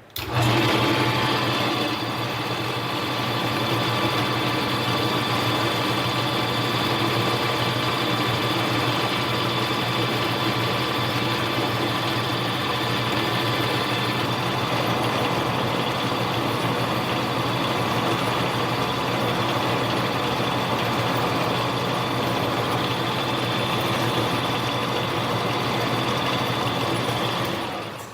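Small metal lathe running steadily with a steady motor and gear whine while taking a turning cut on the diameter of a tiny part. It starts abruptly and shuts off near the end.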